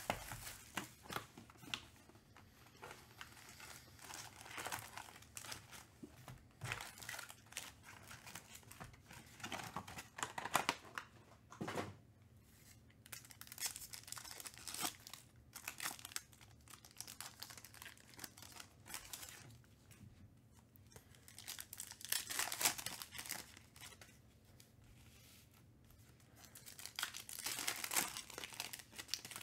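Foil hobby packs of Panini Donruss Optic basketball cards being torn open and crinkled by hand, in repeated bursts of tearing and rustling with quieter gaps between.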